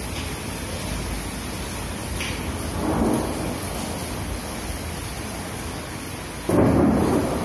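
Steady rain with thunder: a brief rumble about three seconds in, then a sudden, louder roll of thunder near the end.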